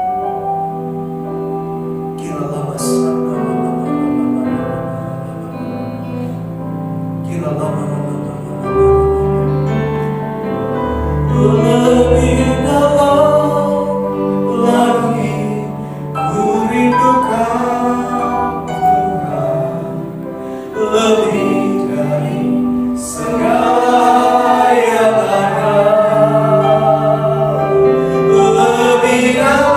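Christian worship song: soft held instrumental chords, with singing coming in about seven seconds in and the music building louder.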